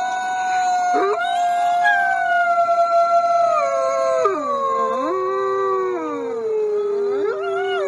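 Several wolves howling together: long overlapping howls at different pitches, held and then sliding down and back up.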